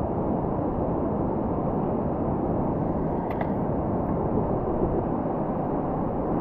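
Steady rushing noise of wind buffeting the microphone and surf on an open beach, with a faint click about three seconds in.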